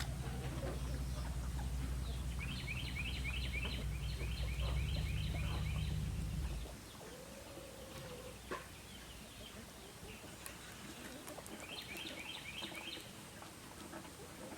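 A bird's rapid run of repeated high notes, heard twice, with a steady low mechanical drone that cuts off about seven seconds in.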